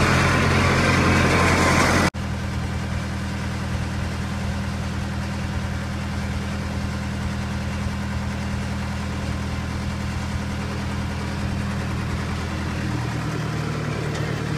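Wheel loader's engine idling steadily. It is louder and rougher for about the first two seconds, then settles into a quieter, even low idle.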